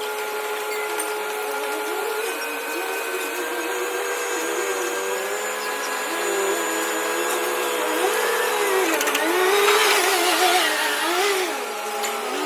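Crane machinery running with a steady mechanical whine made of several held tones, and a lower tone that swings up and down about once a second. A louder hissing rush swells up about two-thirds of the way in and dies away near the end.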